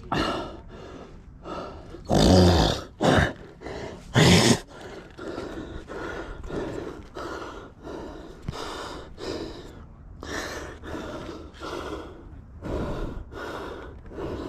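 A person breathing hard and fast into the microphone, a rhythmic run of panting breaths with a few much louder gasps a couple of seconds in.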